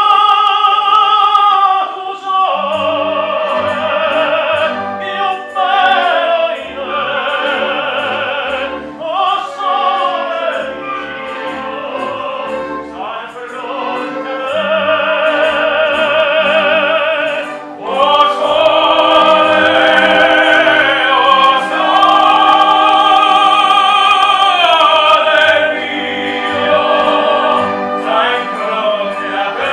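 Male opera singers singing with orchestral accompaniment, long held notes with wide vibrato.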